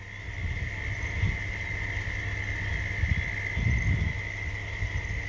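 A steady, unbroken high-pitched night chorus of calling insects or frogs, with irregular low rumbling underneath.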